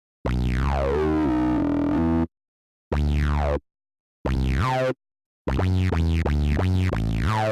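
Electronic background music in short, chopped bursts of half a second to two seconds, with falling sweeps in pitch. Each burst is cut off abruptly into dead silence.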